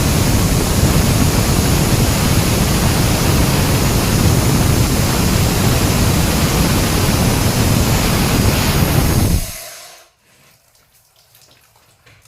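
Bohai 400 ring saw cutting concrete: a loud, steady, rushing noise that winds down and stops about nine and a half seconds in.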